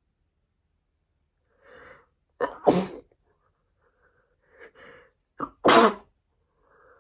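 A woman sneezing from a cold: two sharp sneezes about three seconds apart, each preceded by a short, catching in-breath, with another in-breath starting near the end.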